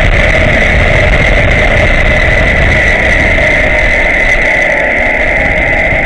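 Zip line trolley's pulley wheels running fast along a steel cable: a loud, steady whir with a high-pitched hum, over low wind rumble on the microphone.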